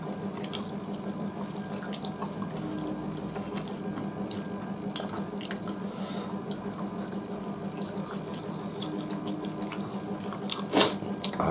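Close-up eating sounds: wet chewing, lip-smacking and fingers working rice and chicken curry on steel plates, heard as a run of small wet clicks over a steady low hum. One sharper, louder click comes near the end.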